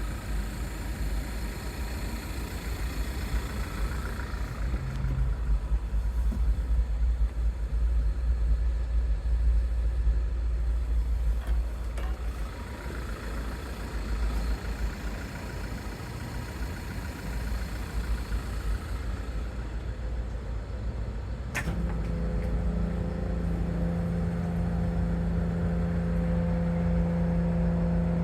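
Low, steady rumble of running machinery. About three quarters of the way through there is a sharp click, and then a steady low hum with a higher tone above it comes in and holds.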